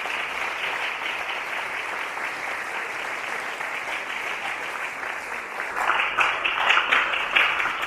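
Audience applauding, a steady patter of many hands clapping that swells louder, with sharper claps, about six seconds in.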